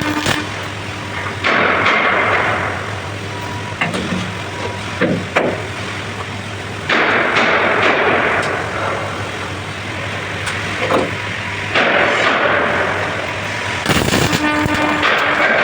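MIG welding arc crackling and sputtering in several runs, each starting abruptly, about four in all, over a steady low hum.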